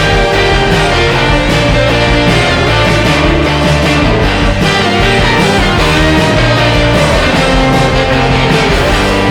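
Background music: a loud, busy rock-style track with guitar over a pulsing bass and a steady beat.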